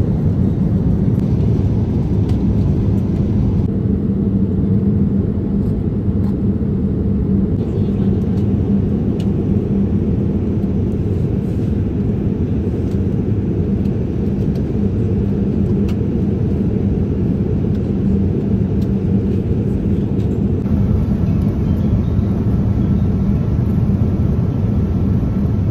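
Airliner cabin noise in cruise flight: a loud, even low rumble of the engines and airflow, with a steady hum underneath.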